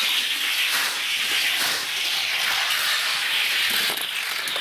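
Toy car rolling down a race track: a steady hiss, with a few faint clicks.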